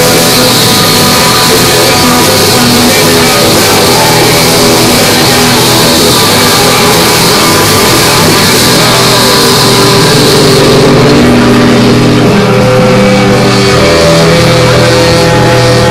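A live rock band playing loud with electric guitar. The bright high end thins out about eleven seconds in.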